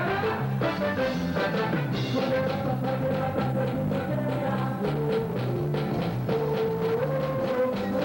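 A band playing: a bass line stepping between notes, steady drum-kit beats, and a sustained lead melody on top.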